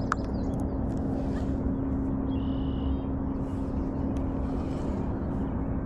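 A steady low hum over a low wind rumble, with a short bird call a little before halfway through.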